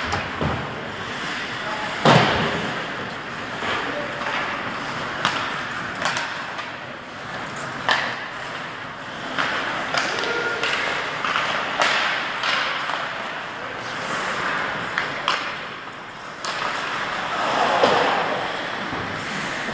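Ice hockey play: irregular sharp knocks and clacks of sticks and puck against the boards, with a loud bang about two seconds in, over a steady hiss of skates on the ice.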